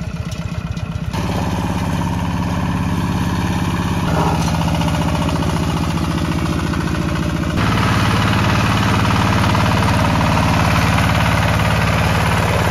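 Hand tractor's single-cylinder engine running steadily as it pulls through a flooded rice paddy. The sound jumps abruptly in level about one, four and seven and a half seconds in, where shots are cut together.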